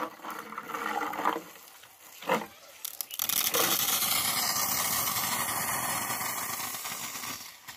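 Pressurised water jet hissing out of a homemade water gun, a plastic soft-drink bottle pumped full of air with a narrow tube as nozzle. The loud, steady hiss starts about three seconds in and weakens near the end before stopping.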